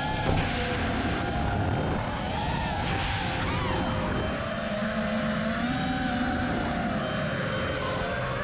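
FPV racing drone's motors whining, their pitch rising and falling with the throttle, over a rally car's engine running at speed.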